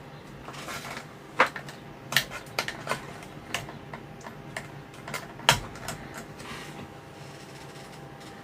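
Irregular light clicks and taps of small parts and tools being handled on a workbench while capacitors are swapped in and out of a tester, over a faint steady hum.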